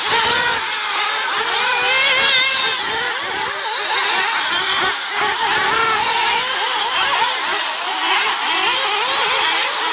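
Several radio-controlled off-road racing cars running on a dirt track together, their motors whining and rising and falling in pitch over and over as they accelerate and back off.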